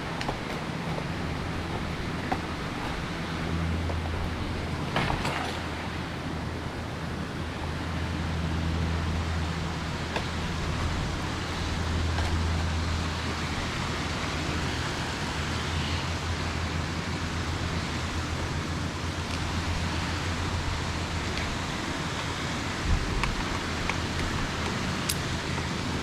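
A steady low engine hum under an even rush of noise, with a few brief knocks.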